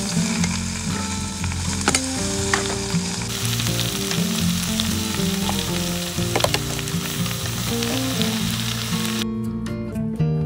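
Vegetables sizzling and frying in a hot steel wok, with a few sharp clinks of the metal spatula against the pan. Background music plays underneath, and the sizzle stops near the end.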